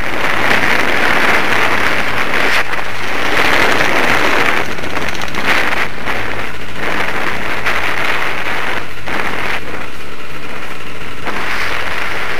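Dirt bike engine running while riding a dirt trail, with wind rushing over the camera's microphone. The noise cuts briefly several times.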